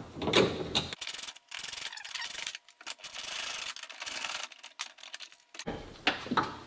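A 10 mm socket ratchet clicking in quick runs broken by short pauses as the bolts of the hatch strut's lower bracket are backed out.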